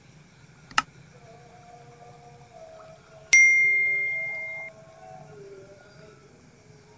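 A sharp click, then about two and a half seconds later a single bright bell ding that rings and fades over about a second and a half: the click-and-bell sound effects of an edited-in subscribe-button animation.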